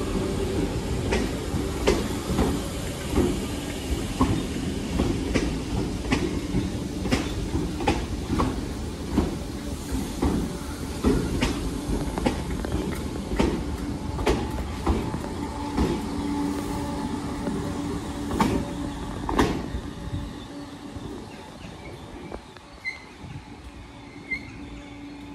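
Merseyrail Class 507 electric multiple unit running slowly into the platform, its wheels clicking over rail joints under a steady running noise. It quietens about twenty seconds in as the train comes to a stand.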